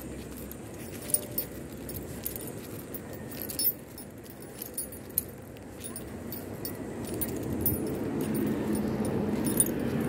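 Footsteps of someone walking on asphalt with light jingling and clicking from things carried, and a low rumble that grows louder over the last few seconds.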